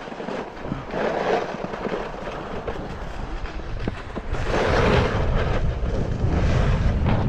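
Hovland Buckshot snowskate scraping over packed snow as it slides downhill, the scrape swelling twice. From about four seconds in, wind rumbles on the microphone as it picks up speed.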